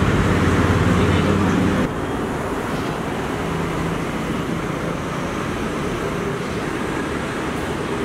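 Steady roadside street background noise with traffic. It is louder, with a low hum, for the first two seconds, then drops suddenly to a slightly quieter, even level.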